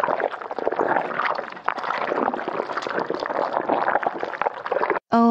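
Cartoon sound effect of slime pouring from a cup, a continuous liquid sound that cuts off suddenly near the end. A loud, steady, pitched tone starts just after it.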